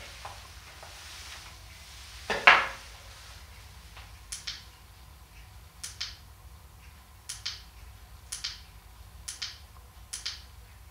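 Push-button switch of a bicycle headlight clicking as it is pressed over and over to step through the light's modes. Each press gives a short, sharp double click, coming about every second or so. A single louder knock of the lamp being handled comes before them.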